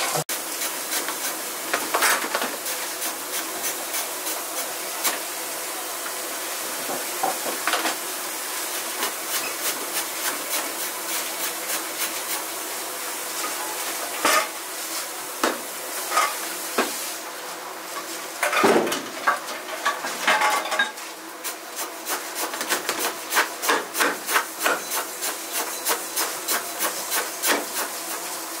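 Ramen-kitchen prep work: rubbing and scraping against wood with scattered knocks over a steady kitchen hiss, and a run of quick, sharp knocks near the end.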